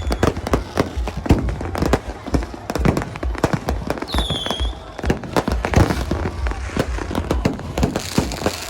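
Fireworks and firecrackers going off all around in rapid, irregular bangs and pops, with a short whistling firework about four seconds in.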